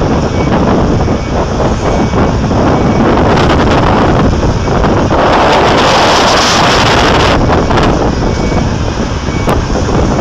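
Komatsu PC8000 hydraulic mining excavator's twin diesel engines running as the face-shovel bucket moves, with wind buffeting the microphone. A louder rushing hiss swells for about two seconds midway.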